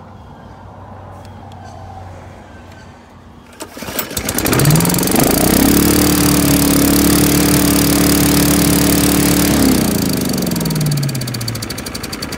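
A small single-cylinder 212 cc engine on the mower's grass-collection vacuum starts about four seconds in and revs straight up to a steady high speed. Near the end it drops back to idle. Before it starts there is only a low hum.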